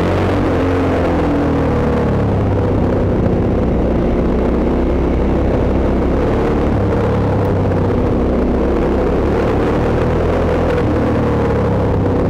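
Hyosung GT650's 647 cc V-twin engine running while the motorcycle rides in traffic, with wind and road noise. Its note eases slightly in the first couple of seconds, then holds steady.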